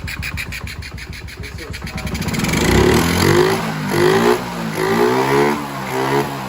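160 cc single-cylinder motorcycle engine idling with an even pulse, then revved up and down in about four quick throttle blips. The carburettor's air screw has just been adjusted.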